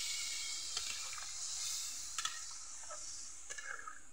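A curry in a wok on a wood fire sizzling with a steady hiss that slowly fades, just after hot water has gone into it. A metal spatula clicks and scrapes against the pan several times as the curry is stirred.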